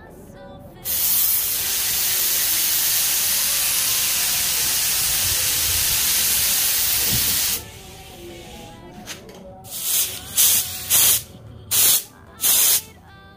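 Auarita K350 gravity-feed spray gun spraying paint onto a test sheet: a loud, steady hiss of compressed air and atomised paint for about seven seconds. It is followed by several short hissing bursts of air from the gun.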